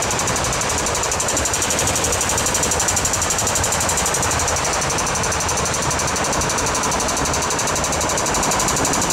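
Two MTR electric trains running through an underground station without stopping, in a loud, steady rush of wheel and running noise with a fast, even rattle and a faint steady whine.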